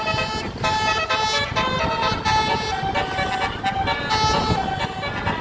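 Bus telolet horn, a multi-trumpet musical air horn, playing a melody whose notes change every fraction of a second, over the rumble of traffic and engine.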